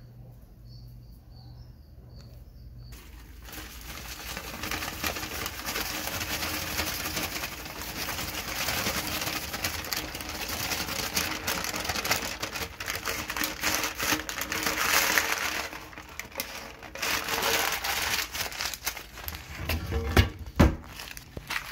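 Feeder crickets chirping in a quick, even series for the first few seconds. Then a brown paper bag rustles and crinkles loudly as the crickets are shaken out of it. A sharp knock comes near the end.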